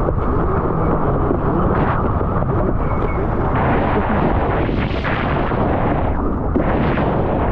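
Steady rushing roar of wind buffeting a surfer's POV camera microphone, mixed with the rush of water, with surges that rise and fall every second or so.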